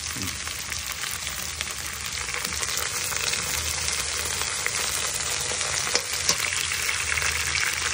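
Sliced onions, green beans and tomato sizzling in hot oil in a steel wok while a perforated metal spoon stirs them, the frying hiss steady, with small scraping clicks and two sharper ones about six seconds in.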